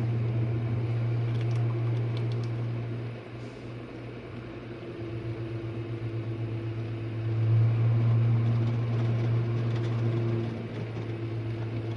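Jenn-Air dishwasher running mid-cycle: a steady low hum from its pump motor with water churning inside. The hum drops away about three seconds in, wavers, then comes back stronger about halfway through.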